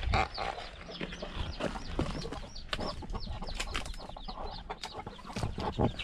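Chickens clucking with a busy run of short, high cheeps, over crackling footsteps through dry fallen leaves.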